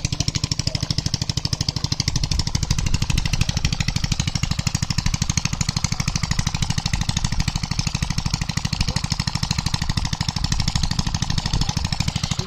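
Small engine running steadily with a rapid, even chugging beat that does not change in speed or level.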